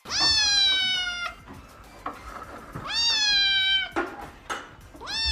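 A cat meowing: three long drawn-out meows, each about a second long, rising at the start and then held, the third beginning near the end.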